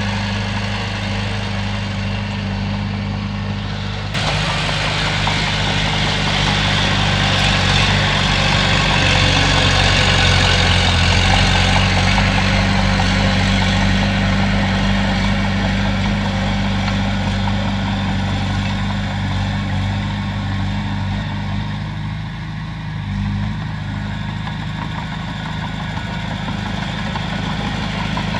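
Komatsu bulldozer's diesel engine running steadily. About four seconds in, it abruptly gets louder, with added clatter and hiss, then eases slightly later on.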